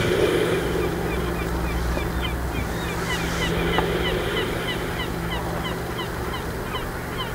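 A flock of birds calling without a break: many short high calls, several a second, over a steady background rush.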